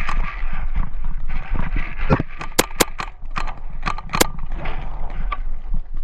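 Paintball marker firing, about six sharp pops in quick succession between roughly two and four and a half seconds in, over a steady low rumble.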